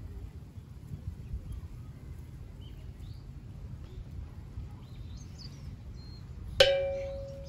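Outdoor ambience: a low steady rumble with faint, scattered bird chirps. Near the end a sudden ringing tone sounds and fades away over about a second.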